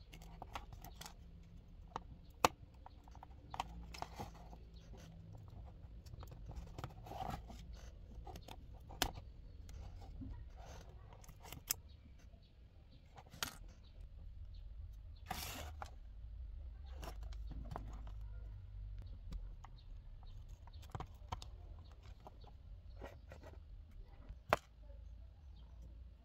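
Handling noises from a plastic digital clock being taken apart by hand and with pliers: scattered sharp clicks and scrapes of the plastic case and its metal battery contacts, with a longer scrape about halfway through, over a low steady rumble.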